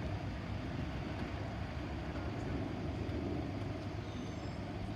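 Class 465 Networker electric multiple unit running past over the level crossing, a steady low rumble of wheels on rail.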